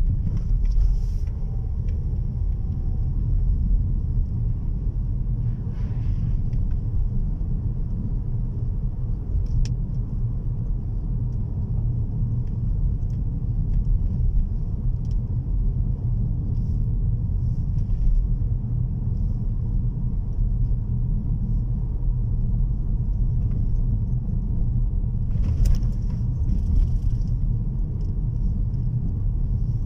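Car cabin noise while driving on a wet road: a steady low rumble of engine and tyres, with a few short hissy swells, one about six seconds in and more around twenty-five seconds.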